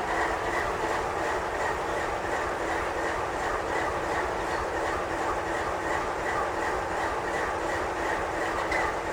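Double-stack intermodal well cars of a freight train rolling past on the rails: a steady running noise with a regular clickety-clack of wheels over the track about three times a second.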